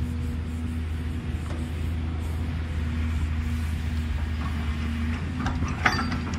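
JCB tracked excavator's diesel engine running steadily as it works, swinging its bucket over a dump truck and emptying soil into it. A brief clatter comes near the end as the bucket unloads over the truck bed.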